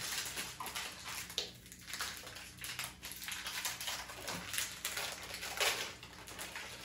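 Plastic wrapper of a Strawberry Cream Oreo pack crinkling and tearing as it is opened by hand, an uneven run of crackles.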